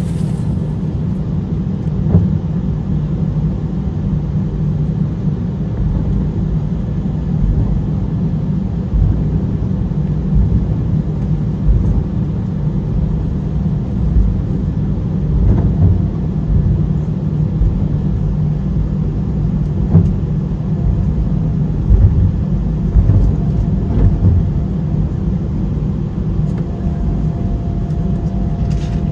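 Cabin noise of an Airbus A319 airliner on the ground: a steady low rumble from the engines and airframe, with a few short thumps along the way.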